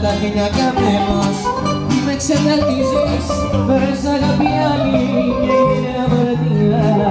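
Live music: two acoustic guitars played together with a man singing into a microphone, the song running on without a break.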